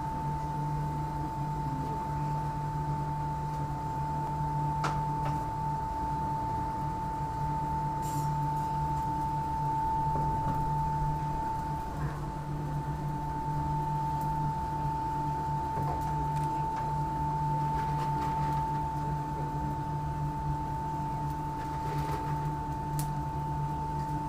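Electric blower fan running steadily: a constant high whine over a low hum and rumble, with a few light clicks and knocks.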